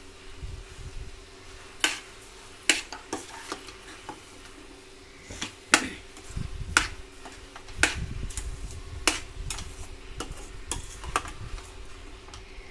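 A metal spoon stirring grated beetroot and sugar in a stainless steel pan, clinking and scraping against the pan about once a second, as the sugar is mixed into the milk-cooked beetroot for halwa. A faint steady hum runs underneath.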